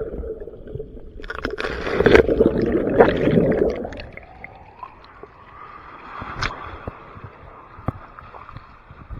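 Ocean waves at the shore: a wave surges in about a second in, loudest for a few seconds, then washes away into a quieter steady hiss of water.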